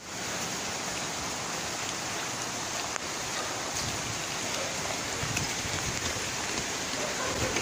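Heavy rain pouring steadily onto wet pavement, an even hiss with a few faint ticks of drops.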